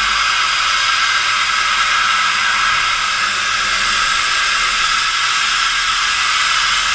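JTEKT FH500J horizontal machining centre running between cuts, its end mill clear of the work: a steady, even hiss with no cutting sound.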